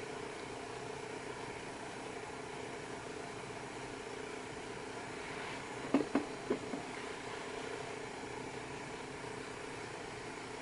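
Quiet steady background hum with faint steady tones, and a short cluster of three or four brief faint sounds about six seconds in.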